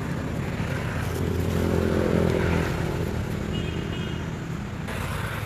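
A motor vehicle's engine passing: a low, even hum that swells to its loudest about two seconds in, then fades.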